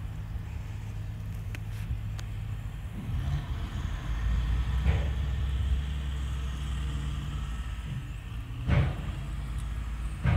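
A low, steady motor hum that drops to a lower pitch about three seconds in, with a few short knocks, the loudest near the end.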